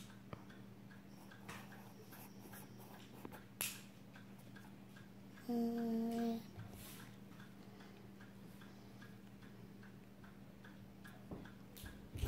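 Quiet room with faint, evenly repeating ticking, about three ticks a second, over a steady low hum. About five and a half seconds in, a short, steady hummed note sounds for under a second.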